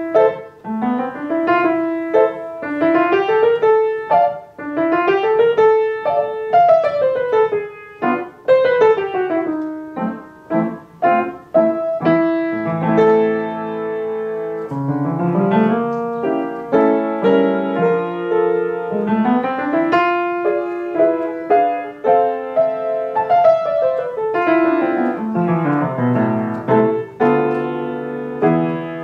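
Solo piano practice: quick runs of notes rising and falling over and over, moving after about twelve seconds into held chords and broken chords.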